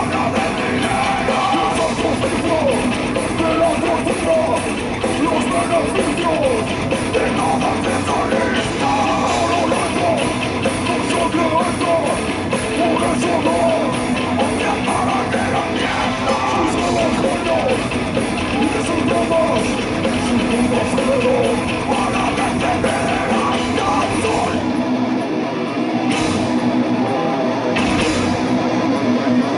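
Heavy metal band playing live at full volume, with distorted electric guitars, bass, drums and singing, heard from among the crowd. Near the end the band thins out for a few seconds, with the deep low end gone, before coming back in.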